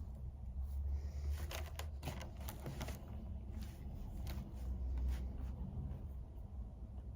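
Paper being handled at a desk: scattered short rustles and scratches, busiest in the first half, over a low steady hum.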